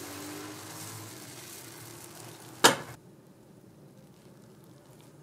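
Batter sizzling in hot fish-shaped bungeoppang iron molds, with one sharp knock a little over halfway through; after the knock the sizzle is much fainter.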